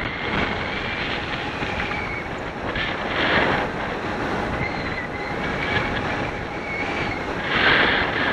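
Wind buffeting the microphone of a camera flying along a bluff, with a faint wavering whistle. The wind swells louder near the end.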